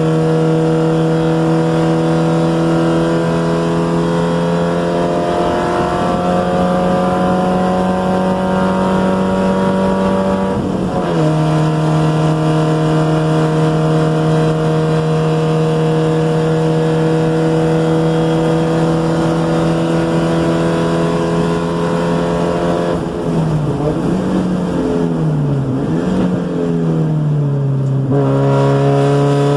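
1990 NA Spec Miata's 1.6-litre four-cylinder engine heard from inside the car, pulling hard: about eleven seconds in its pitch drops abruptly with an upshift, then it holds a long steady note down the straight. Near the end, under hard braking, the pitch dips and jumps several times as it is downshifted with throttle blips, then steadies again.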